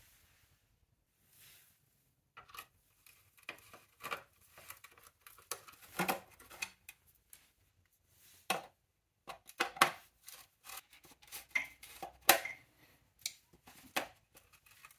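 Irregular metallic clicks, scrapes and clinks of a screwdriver and gloved hands working the metal cooling-fan cover off a 1958 NSU Prima scooter's engine, beginning a couple of seconds in.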